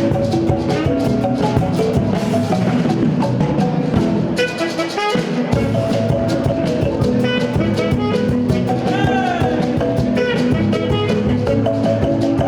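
Upbeat instrumental music with drums, percussion and guitar, steady beat; the bass drops out briefly about halfway through.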